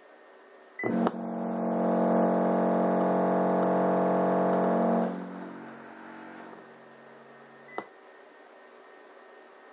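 Crossfire C3 12-inch subwoofer in a sealed box driven hard with a low test tone: a loud, steady buzzing drone with many overtones that starts with a pop about a second in, holds for about four seconds, then fades away, followed by a single click. Its air pressure is driving a second subwoofer as a generator.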